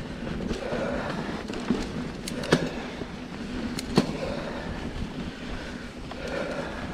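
Mountain bike rolling along a dirt trail: steady tyre and riding noise, with a few sharp clacks from the bike rattling over bumps about two and a half and four seconds in.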